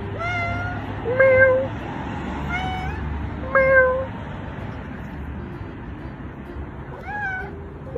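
Cat meowing: four short meows about a second apart, then a pause and one more rising meow near the end.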